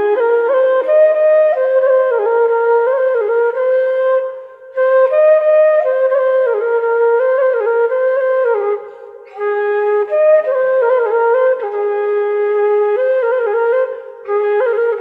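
Background music: a single wind-instrument melody played in short phrases, with brief pauses about every four to five seconds.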